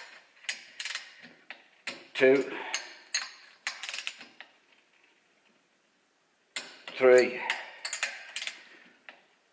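Torque wrench and socket working a cylinder head nut on a Lambretta RT195 kit: scattered metal clicks and clinks of the ratchet and socket, with three louder short pitched sounds near the start, about 2 s in and about 7 s in. The nut keeps turning without reaching torque.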